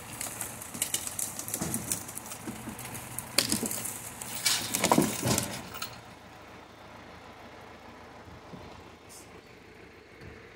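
Beech logs being winched and dragged through undergrowth: bursts of rustling and snapping branches, loudest around the middle. About two-thirds through it dies away to a faint steady background.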